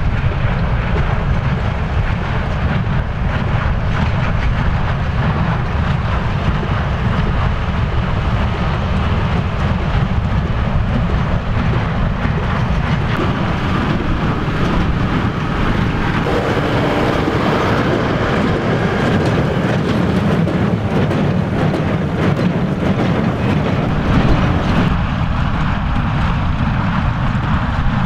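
Case IH 115C tractor running under load while pulling a Welger AP530 small square baler through the hay, the engine and the baler working steadily.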